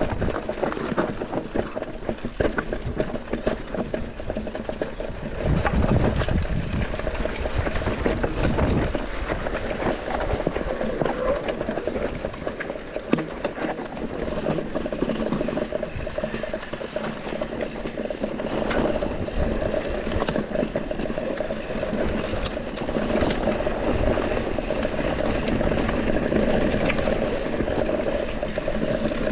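Mountain bike running down a rough trail: tyre noise over gravel and rock with dense clicking and rattling of the bike, and low rumbling surges about six and nine seconds in.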